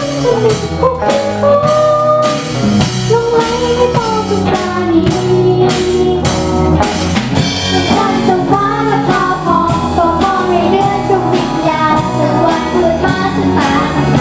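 A live band playing a pop-rock song: a child's singing voice over electric guitar, bass guitar and a drum kit keeping a steady beat.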